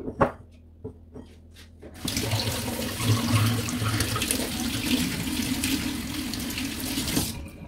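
Kitchen tap running into the sink, rinsing sliced onion in a metal sieve. A few light clicks come first, then the water comes on suddenly about two seconds in and is shut off shortly before the end.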